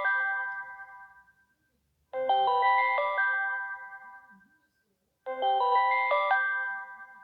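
Samsung Galaxy Wide3 ringtone: a short phrase of quick, clear melodic notes that rings out and fades, looping about every three seconds.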